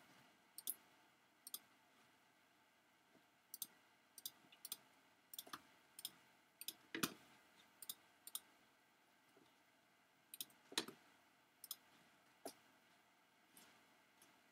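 Computer mouse clicking: short, sharp clicks at irregular intervals, from about one every two seconds to quick pairs, over a quiet room.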